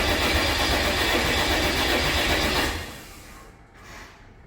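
6.7 Cummins diesel being cranked on the starter with its injectors unplugged, turning over without firing to build oil pressure. The cranking stops about three seconds in. The owner puts a noise heard while cranking down to torque converter bolts left out.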